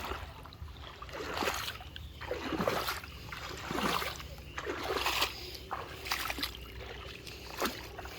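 Splashing and sloshing water in a shallow mountain river, in uneven bursts about once a second, as when wading through it.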